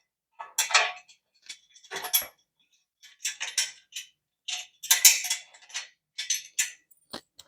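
Steel bolts and washers clinking and rattling against a metal bed frame as they are pushed through and hand-threaded into the joint, in short irregular bursts.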